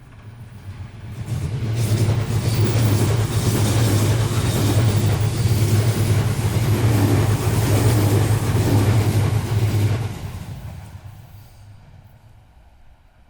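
A train passing by: it swells in over a couple of seconds, stays loud with a steady low hum and rattling for about eight seconds, then fades away near the end.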